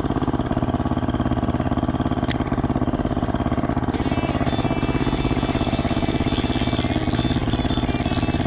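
Small two-horsepower outboard motor on a compact kayak running steadily with an even, rapid pulsing note.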